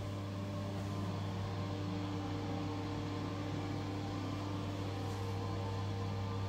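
A steady low electrical hum, with fainter higher tones held over it, unchanging throughout.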